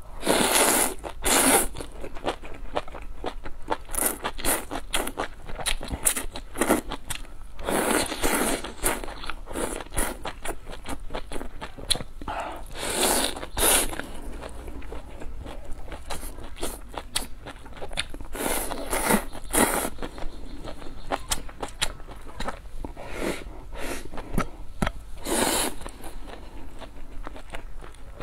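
Close-miked eating sounds: wet slurping of broth-soaked greens, a long loud slurp every few seconds, with chewing clicks between them.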